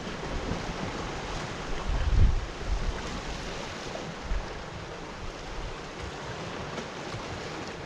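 Sea waves washing against a rocky shore, with wind buffeting the microphone; the strongest low gust comes about two seconds in.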